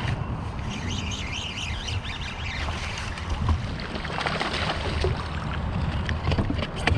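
Wind rumbling on the microphone in a kayak, with a wavering higher sound in the first couple of seconds and a few sharp clicks near the end.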